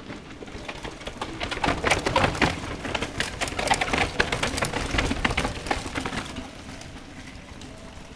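Mountain bikes clattering down a rocky stone descent, with tyres, chains and frames rattling over the stones as riders pass close. The rattle builds about a second in, is loudest in the middle, and fades away after about six seconds.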